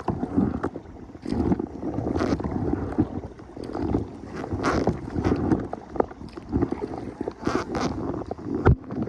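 Water sloshing and splashing around a plastic kayak, with irregular knocks and clicks against the hull and wind on the microphone.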